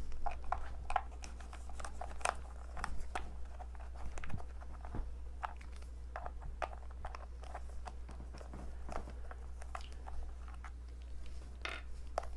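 Plastic toy screwdriver turning the plastic screws of a WolVol take-apart toy train by hand: irregular small plastic clicks and creaks.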